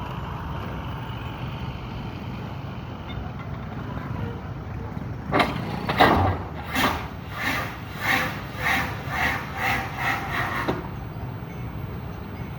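Excavator engine running steadily while its bucket knocks down on a concrete sheet pile to drive it in: about ten heavy knocks roughly every half second, starting about five seconds in and stopping suddenly near the end.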